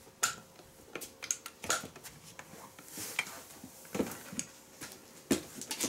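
Handling noise as a camera stand is adjusted close to the microphone: scattered clicks, light knocks and rustling, the sharpest clicks near the start, about four seconds in and a little after five seconds.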